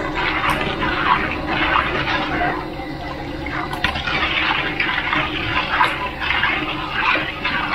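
A metal ladle stirring and scraping hot sugar syrup around a steel wok, the liquid sloshing and bubbling as the sugar dissolves, with repeated strokes about every half second.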